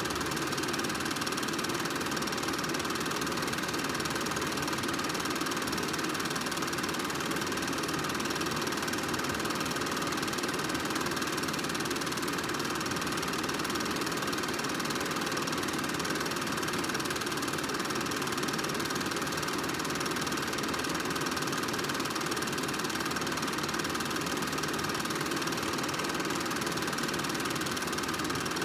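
Film projector running steadily, a continuous mechanical whir with no pauses, accompanying silent home-movie film.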